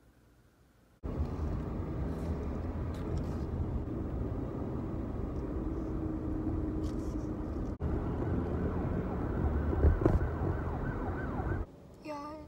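Near silence for about a second, then a car driving, with road and engine rumble heard from inside the cabin. It stops near the end and a woman's voice takes over.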